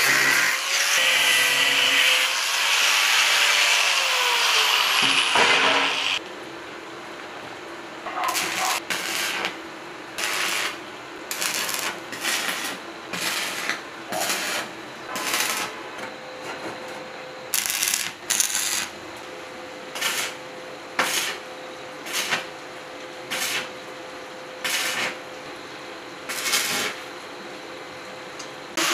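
Angle grinder cutting thin galvanized steel sheet, which runs down with a falling whine about six seconds in. After that, an arc welder lays short tack welds on the sheet-metal box: brief crackling bursts about once a second, over a low steady hum.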